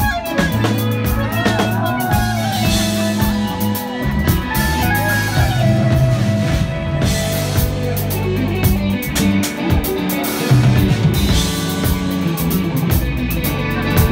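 Psychedelic rock band playing live: electric guitar over a drum kit, with sliding, bending notes in the first few seconds.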